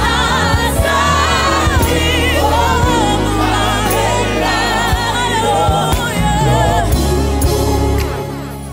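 Two women singing a duet into microphones over instrumental accompaniment, with a backing choir; the sung notes carry a strong, wavering vibrato. The music fades away near the end.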